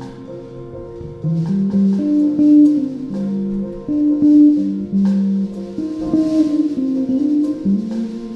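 Live jazz trio of piano, bass and drums playing, with a plucked bass line of single held notes standing out over light cymbal and drum work.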